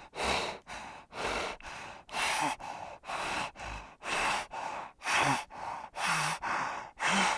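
Heavy, rhythmic panting: hoarse breaths in and out, about two a second, alternating stronger and weaker.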